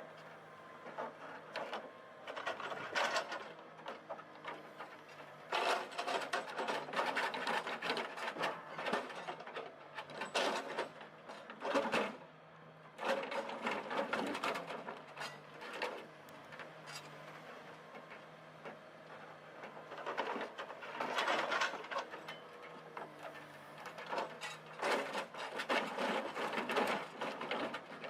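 A heavy forestry machine working, with a steady low engine hum under irregular bursts of mechanical clatter that come and go every few seconds.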